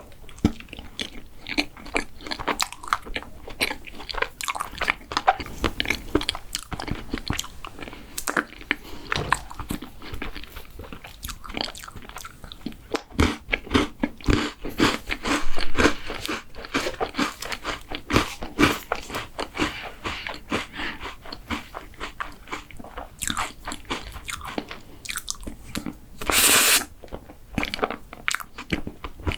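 Close-miked eating: biting into and chewing a crunchy chocolate dessert, with a dense, irregular run of crisp crunches. Near the end comes one short, louder burst of noise.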